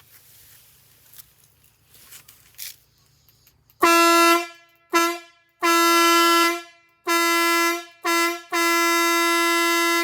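Single-chime train horn powered by a Ryobi battery, sounding one steady low note in six blasts in quick succession starting about four seconds in, two of them short and the last one the longest. Before the first blast there are only faint handling sounds and a low hum.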